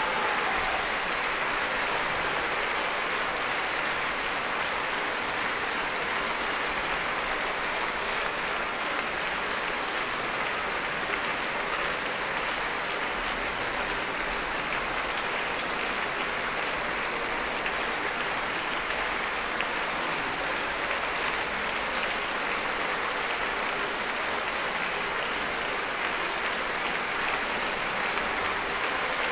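A large concert audience applauding steadily, a dense, even clatter of many hands.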